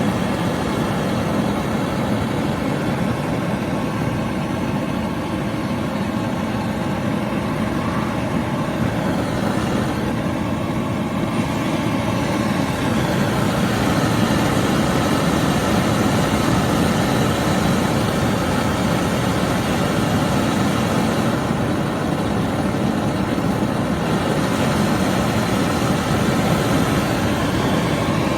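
Home-made Gameco-style propane forge burner running, a steady rushing noise of gas and air burning without a break.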